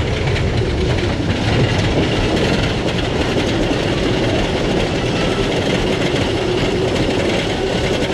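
Wooden roller coaster train climbing its chain lift hill: a steady mechanical clatter of the lift chain and anti-rollback on the wooden track.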